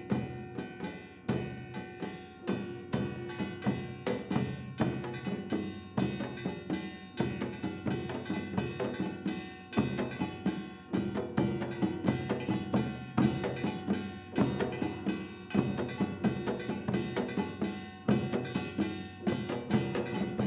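Traditional Korean percussion ensemble playing a fast, driving rhythm of drum strokes, several a second, with ringing tones held under the strikes.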